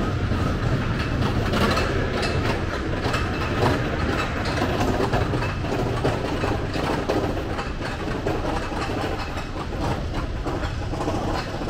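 Mine-train roller coaster train running along its steel track, a steady low rumble of wheels with constant clattering and clicking.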